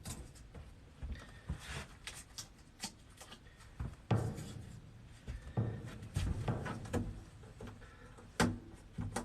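Scattered light clicks, taps and knocks of something being handled, with a few duller thumps about four seconds in and again near the end.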